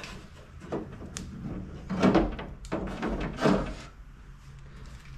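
Metal window frame of a 60 series Landcruiser front door being pulled out of the door, scraping and rubbing against the door shell and seals in several pulls. The loudest pulls come about two and three and a half seconds in.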